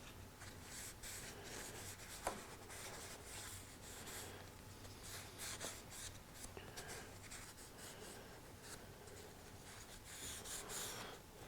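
Hand work scraping and rubbing in short, irregular strokes, with one sharp tap about two seconds in.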